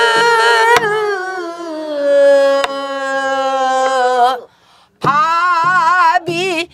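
A woman singing pansori in slow jinyang rhythm, accompanied by strokes on a buk barrel drum. She holds one long note that slides slowly downward from high, the descent the passage is built on, with two sharp stick strikes on the drum. After a short break she starts a new phrase with wide, heavy vibrato over low drum thuds.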